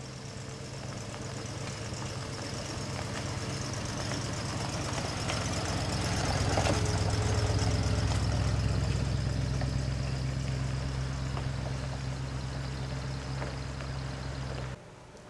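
International Harvester Scout II's engine running as it drives along a gravel road. It passes close by, loudest about halfway through, then fades as it pulls away, and the sound cuts off abruptly near the end.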